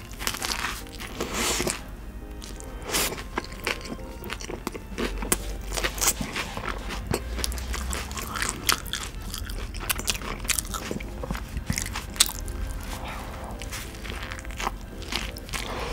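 Close-up eating sounds of a bulgogi burger: big bites through a soft bun and lettuce, then moist chewing with many small crunches and crackles. There is a bite near the start and another near the end.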